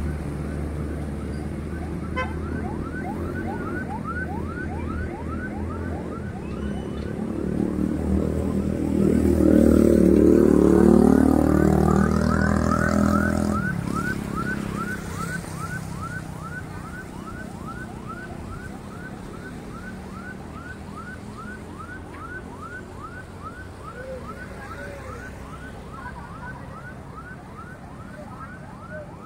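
Street traffic with a motor vehicle passing close by, loudest about ten seconds in, its engine pitch gliding as it goes past. Under it an even run of short repeated chirps, about three a second, goes on throughout.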